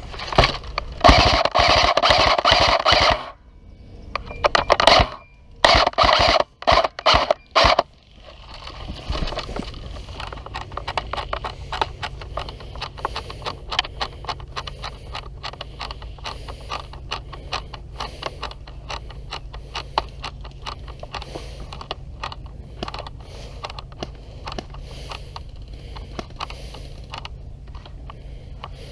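Several loud bursts of rapid full-auto airsoft gunfire, the longest about two seconds. After them come about twenty seconds of quieter, irregular clicking and scraping.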